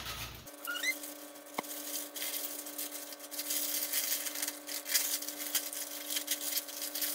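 Parchment paper crinkling and rustling as it is peeled off and crumpled from a tray of dried, crumbly stock, over a steady low hum.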